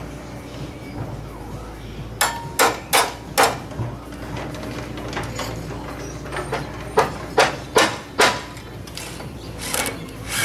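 Sharp hammer blows on timber framing: a run of four quick strikes about two seconds in, another run of four about seven seconds in, and a few more near the end.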